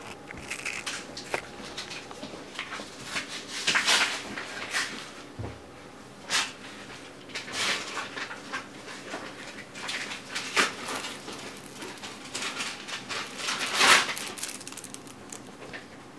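Irregular rustling and clattering from handling plastic packaging and the phone's accessories, in short bursts with the loudest around four seconds in and again near the end.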